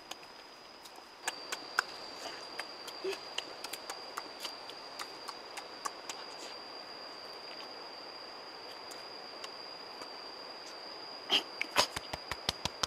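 Eating a banana up close: scattered short wet clicks and smacks of biting and chewing over a steady high-pitched whine. Near the end comes a quick run of louder clicks and thuds.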